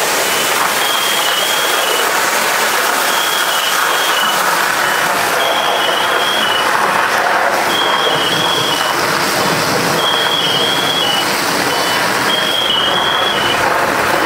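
Fire hose nozzle flowing, a loud steady rush of spraying water. Through it, an electronic alarm repeats a short run of high beeps at two alternating pitches about every two seconds.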